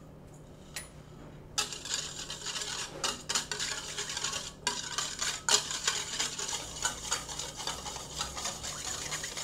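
Wire whisk beating a thin achiote and sour-orange-juice marinade in a stainless steel bowl: a fast, continuous rattle and scrape of the wires against the metal, starting about a second and a half in, as the achiote paste is dissolved.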